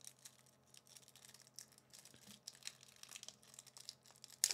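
Foil booster pack wrapper crinkling as it is handled and torn open: a run of soft, irregular crackles with a sharper one near the end.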